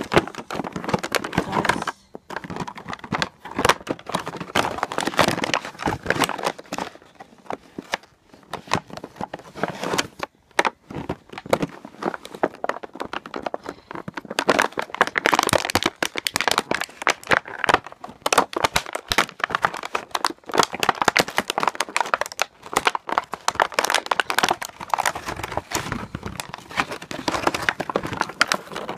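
Clear plastic blister packaging and its cardboard backing crinkling and crackling as they are handled and pried apart by hand, in a dense, irregular stream of crackles with a few brief pauses.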